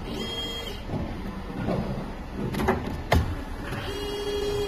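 CNC tube bending machine working through a bend cycle. Its drive motors whine briefly near the start and again near the end, and a sharp metallic clunk from the bending head comes about three seconds in.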